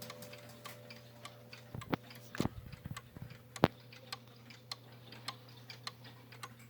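The 15-day Chinese movement of a schoolhouse regulator wall clock ticking steadily, with a few louder clicks and knocks about two to four seconds in.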